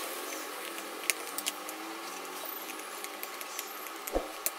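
Screwdriver driving small screws into a black plastic adaptor case, with scattered sharp clicks and ticks and a louder knock about four seconds in.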